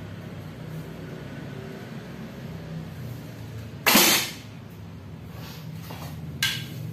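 Turkish-style horsebow, a laminated bending bow, shot once: the string snaps forward on release with one loud, sharp crack about four seconds in. A shorter, quieter knock follows about two and a half seconds later.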